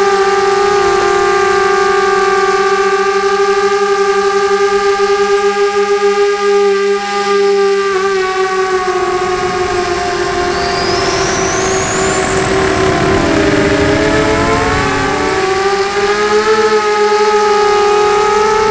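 FPV quadcopter's motors and propellers whining with a steady pitched drone, the pitch wavering and dipping about three quarters of the way through, with a constant thin high tone and a faint whistle gliding upward just past the middle.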